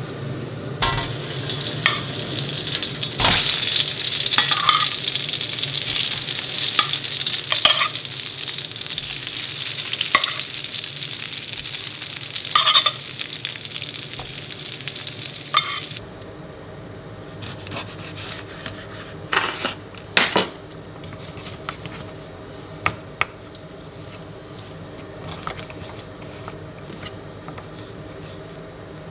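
Par-boiled potatoes sizzling in hot beef dripping in a metal roasting tin, with scattered clicks and knocks as they are set in. The sizzle stops abruptly about halfway through, and a quieter stretch follows with a few sharp knocks of a knife on a wooden chopping board.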